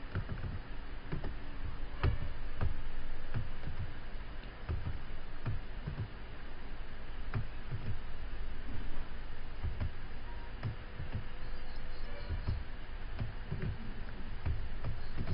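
Computer keyboard typing and mouse clicks: irregular short clicks, a few a second, over a steady background hiss.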